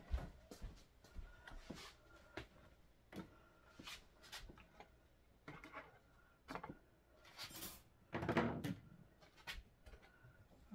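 Small hard objects being picked up and set down on a wooden coffee table by hand: scattered light knocks and clicks, with a louder, longer clatter a little past eight seconds in.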